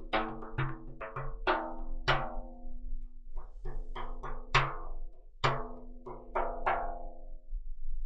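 Hand-played frame drum, its skin tapped with the fingers in slow, irregular strokes, each stroke ringing out over a steady low ringing tone that carries between them. The playing stops a little before the end.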